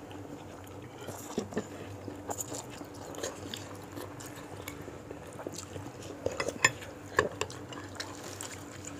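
Cutlery clinking and scraping in a bowl of bakso (meatball soup) during eating, with scattered light clicks and two sharper, louder clinks about six and a half and seven seconds in.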